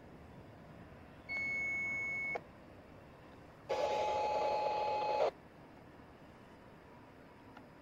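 Two long signal blasts from a departing passenger train's horn. The first is high and clean, about a second long. The second, about a second later, is louder and lower with a rushing edge and lasts about a second and a half.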